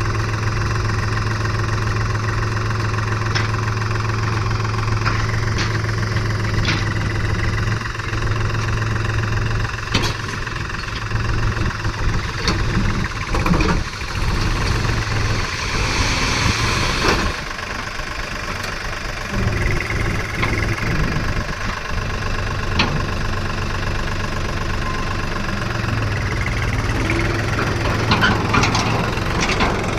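Backhoe loader's diesel engine running steadily, with scattered metallic knocks and clanks and a brief hissing rush about halfway through.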